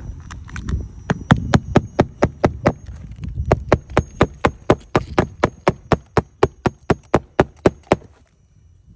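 Rapid, even tapping on a hard surface, about four sharp knocks a second, stopping suddenly near the end.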